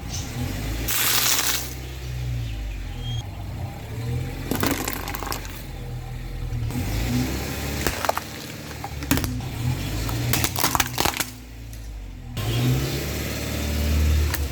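Car engine running at low speed, with a series of sharp cracks and crunches as its tyres roll over and crush objects.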